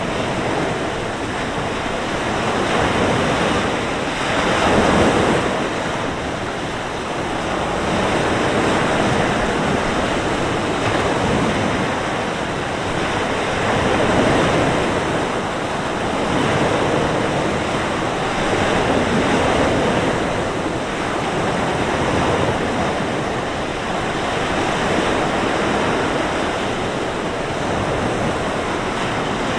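Mediterranean surf breaking and washing up the beach: a continuous rush of waves that swells and eases every few seconds, with wind blowing over it.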